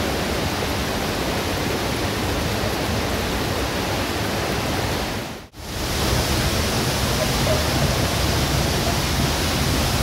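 Cascada Dora waterfall: a steady, loud rush of falling water, breaking off for an instant about five and a half seconds in.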